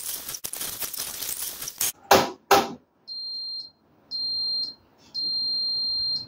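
Washing machine beeper sounding three steady high-pitched beeps, two short and a longer last one, after a rushing noise and two loud knocks.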